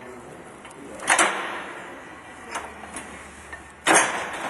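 Square baler knotter mechanism working: two loud metal clacks about three seconds apart, with a few lighter clicks between them.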